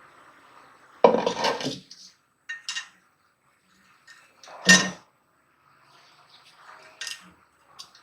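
Metal pieces clattering and clinking as they are handled. There is a longer rattle about a second in, two light clinks, a sharp clank with a short ring near the middle, and softer clinks near the end.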